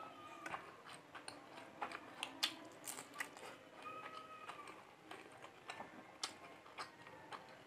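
Eating rice and curry by hand from a stainless steel plate: fingers mixing and scooping the rice make scattered small clicks and taps, with mouth sounds of eating in between.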